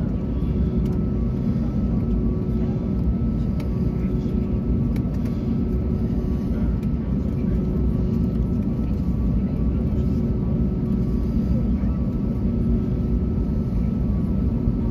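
Airbus A321neo cabin noise while taxiing: the steady sound of its Pratt & Whitney geared turbofan engines at low thrust, heard through the cabin, over a deep rumble, with a few faint steady whining tones on top.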